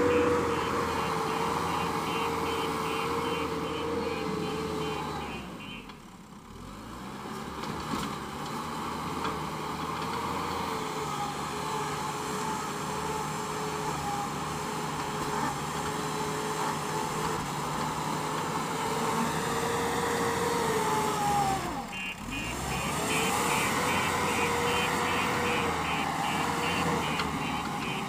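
JCB backhoe loader's diesel engine running under load as it works sand with its front bucket, its revs rising and falling and twice dropping away briefly. A reversing alarm beeps steadily over the first few seconds and again near the end.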